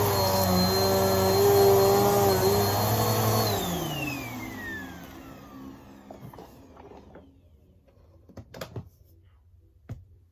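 Vacuum cleaner running steadily, then switched off about three and a half seconds in, its motor whine falling in pitch as it spins down. A few light clicks follow near the end.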